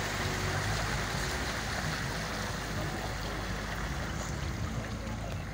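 Cars driving slowly through deep floodwater: a steady rushing splash of water churned by the tyres, with a low engine hum underneath.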